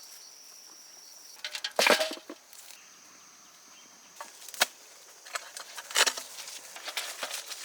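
Insects trilling steadily in a high thin tone, broken by a handful of sharp clicks and knocks, the loudest cluster about two seconds in.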